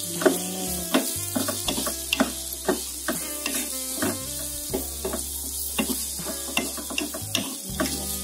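Long beans and carrots sizzling in hot oil in a pan as they are stir-fried, the stirring utensil knocking and scraping against the pan about twice a second.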